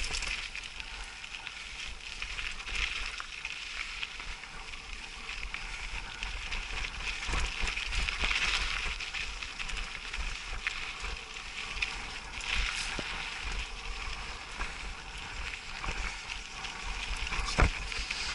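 Mountain bike riding over a dirt and loose-stone trail: a steady crunching rattle of tyres on gravel with a low rumble, broken by a few sharp knocks, the loudest near the end.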